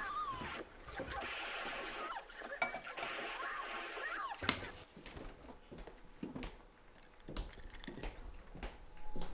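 Scattered small clicks and wet taps of chopsticks and a spoon working in a ceramic bowl of food. In the first half these come over faint, indistinct voices.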